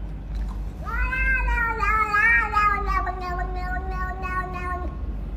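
A pet's single long, drawn-out wailing cry. It starts about a second in, holds for about four seconds and sags slightly in pitch, over a steady low hum.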